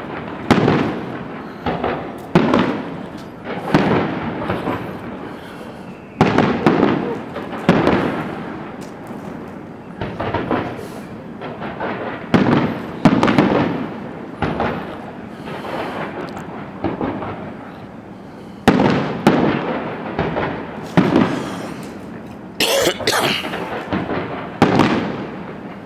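Aerial fireworks display: shells bursting one after another, a sharp bang every one to three seconds, each trailing off over about a second. A brief crackle sounds near the end.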